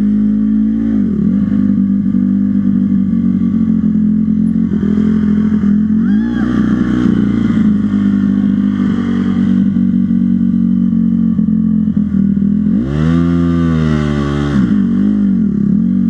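Dirt bike engine running steadily, with revs that rise and fall in pitch about a second in, around six seconds in, and a bigger rev up and back down near the end.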